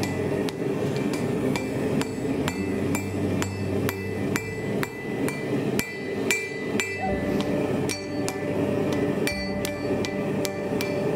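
Blacksmith's hammer striking red-hot steel held in tongs on an anvil, a steady run of about two to three blows a second, each with a short metallic ring.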